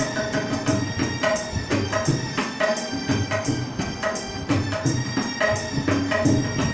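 Tabla and an electronic keyboard playing a Hindi film song, with jingling hand percussion keeping time. The drum strokes come in a steady quick rhythm under the keyboard's held melody notes.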